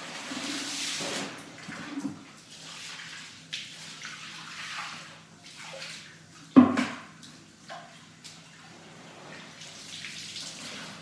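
Water from a garden hose running and splashing into a plastic bucket as a cloth is rinsed, strongest at the start and then coming and going. A single loud knock a little past halfway is the loudest sound.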